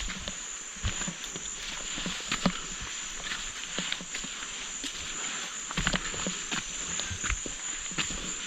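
Rainforest ambience: a steady, high-pitched insect drone, with irregular short clicks and knocks scattered through it.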